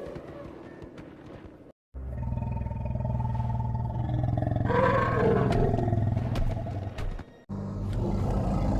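Woolly mammoth sound-effect roars: after a brief dead gap, a loud deep rumbling roar starts about two seconds in, with a higher cry rising over it midway. It cuts off sharply near the end and a second deep roar begins.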